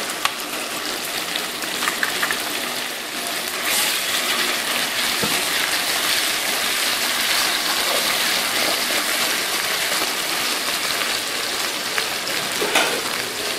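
Ginger-garlic paste sizzling in hot ghee in a steel wok, a steady hiss that grows louder about three and a half seconds in, while a steel ladle stirs it.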